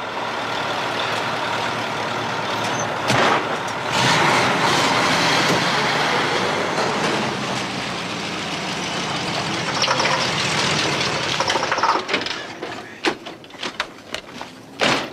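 Heavy truck's engine running steadily as the lorry drives off, getting louder about four seconds in and fading out after about twelve seconds. Scattered clicks and knocks follow, with a sharp knock near the end.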